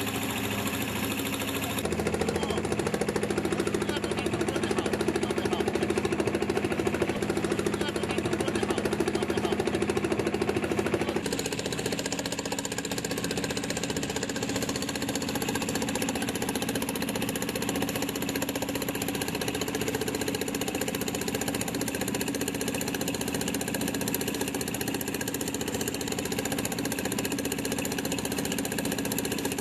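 An engine running steadily with a knocking beat. It runs harder from about two seconds in, then eases back about eleven seconds in.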